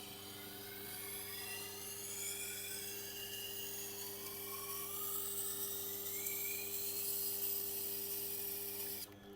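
Steel knife edge grinding against the turning wheel of a Tormek sharpener: a hiss with wavering high squeals over the motor's steady hum, as the heel of the blade is worked. The grinding cuts off suddenly near the end while the motor keeps humming.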